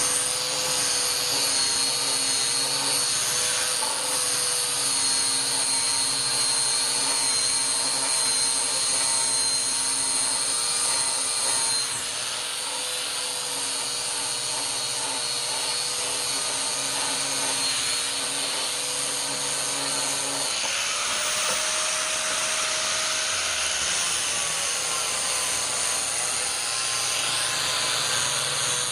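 A small electric power tool running steadily, its motor hum wavering slightly in pitch, while working rusty steel pliers. About two-thirds of the way through the sound changes: the pitch steps up and a broader hiss takes over.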